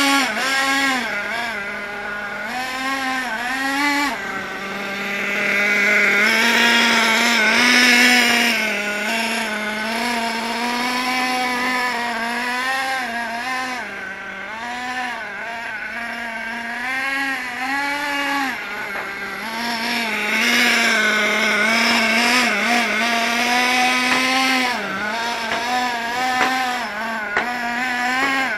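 Hot Bodies Lightning GT radio-controlled car's small nitro engine running, its pitch rising and falling again and again with the throttle.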